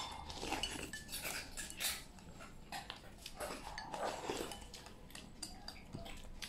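A person slurping soup straight from a bowl held to the mouth, in short irregular sips, with a few light clinks of the bowl.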